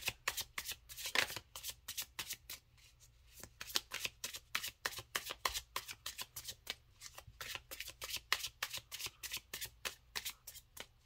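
Lo Scarabeo Ceccoli Tarot deck being shuffled by hand: a quick run of card flicks and slaps, several a second, with a brief lull about three seconds in.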